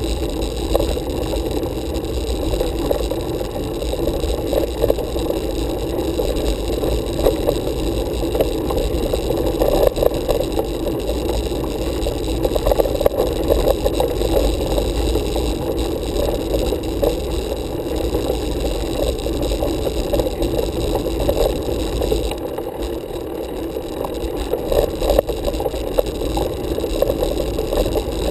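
Road bicycle ridden uphill on asphalt: the steady rumble of road vibration and rattling picked up through the handlebar-mounted camera, with wind on the microphone.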